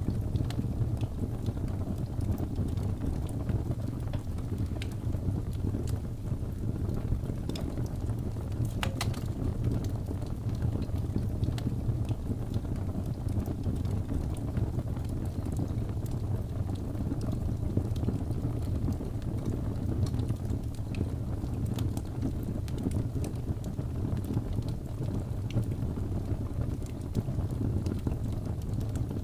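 Wood fire burning: a steady low rushing noise with scattered small crackles and pops, one sharper pop about nine seconds in.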